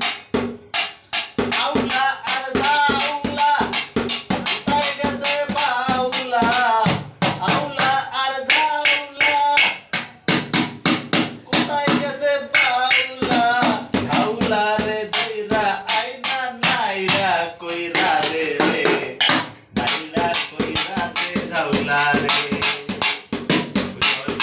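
Improvised drumming with sticks on empty paint buckets and lids, a fast, steady beat of sharp strikes, with a man singing a song over it.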